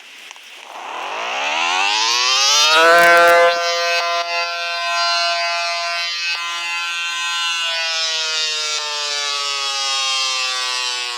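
Siren winding up in pitch over about two seconds, then holding a steady wail. From about two-thirds of the way through it slowly falls in pitch. A brief low thump comes about three seconds in, at its loudest point.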